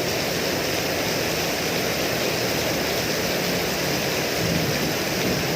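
Steady rain, an even hiss of falling water.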